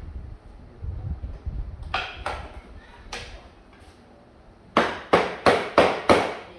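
Sharp knocks on a shipped package being opened: a few lighter knocks and handling rumble, then five loud knocks in quick succession, about three a second, near the end.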